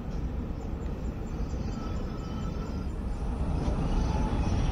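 Hong Kong Peak Tram 6th-generation funicular car running along its rails as it approaches and passes, a steady low rumble that grows gradually louder as it draws near.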